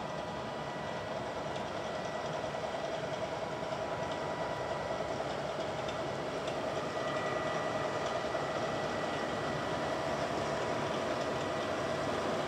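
Steady machinery hum from a passing lake freighter, the steamer Philip R. Clarke, with a few steady tones over a low rumble, growing slowly louder as she draws abeam.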